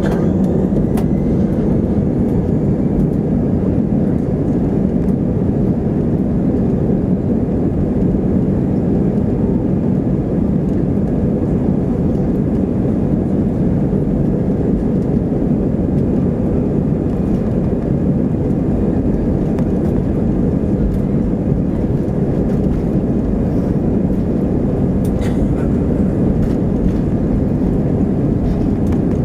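Airbus A320's jet engines at takeoff thrust heard inside the cabin during the takeoff roll: a loud, steady, deep rumble that holds level.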